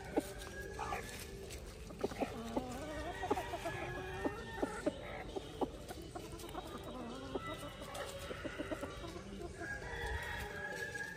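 A flock of Ayam Cemani chickens clucking and calling, with a run of short sharp clucks and a longer held call near the end.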